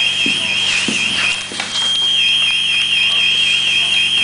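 A firefighter's PASS alarm sounding: a loud, high-pitched warbling tone that swings up and down several times a second over a steady high tone. This is the alarm that signals a downed, motionless firefighter. A few knocks of gear come in the first half.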